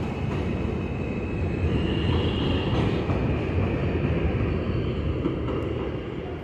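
New York City subway train running on the elevated BMT Jamaica Line: a steady heavy rumble that grows louder about two seconds in and eases near the end, with a faint high whine in the middle.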